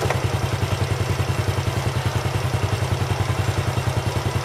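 Motor scooter engine idling, with an even, steady pulse of several beats a second.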